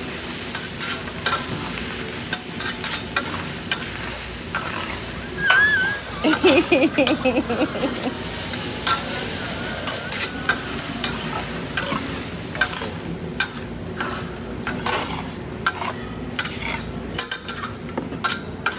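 Fried rice sizzling on a hibachi griddle while a metal spatula scrapes and clacks against the hot steel plate: a steady sizzle with frequent sharp taps. A brief pulsing voice-like sound about six seconds in.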